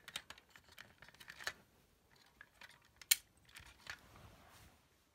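Plastic clicks and rattles from a 1985 Kenner M.A.S.K. Hurricane toy car being handled, with one sharp snap about three seconds in. A soft rustle follows as the car is pushed along the carpet.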